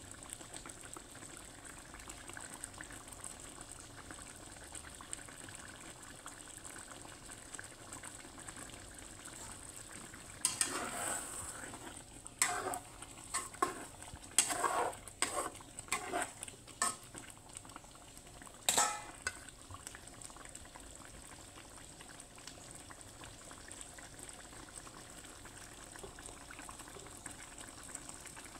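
Chicken simmering in coconut-milk chilli sauce, bubbling faintly and steadily in a non-stick wok. About ten seconds in, a spatula stirs through it, scraping and knocking against the pan in a run of strokes, with a last knock just before twenty seconds.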